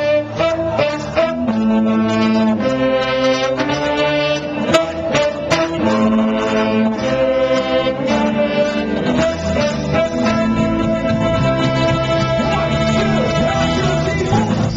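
Live band playing: a horn section of saxophones, including a baritone sax, and a trombone blowing sustained chords over electric guitar and bass guitar, heard through a pocket camcorder's microphone.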